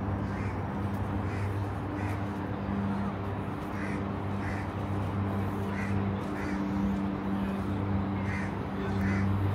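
Crows cawing, a string of short calls repeating every second or so, over a steady low mechanical hum.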